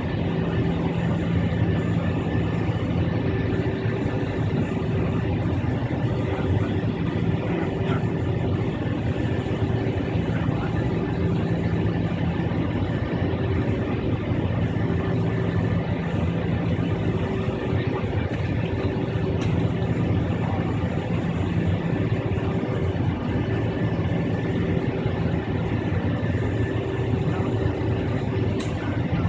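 Inside the cabin of an Avro RJ100, its four Honeywell LF507 turbofan engines run at low taxi power as the jet turns onto the runway: a steady hum with a couple of low droning tones.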